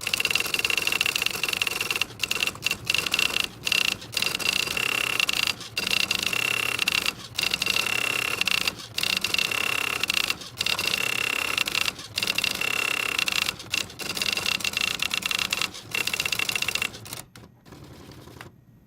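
Typewriter clattering in rapid, dense runs broken by short pauses about every second. It stops about 17 seconds in and a fainter sound follows.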